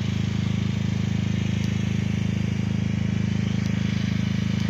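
A motor running steadily: a loud, low hum with a fast, even pulse and no change in speed.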